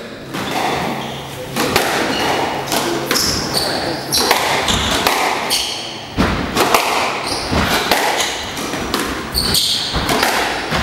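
Squash rally in a large hall: the ball cracks off rackets and walls in a run of sharp thuds, and court shoes squeak briefly on the wooden floor.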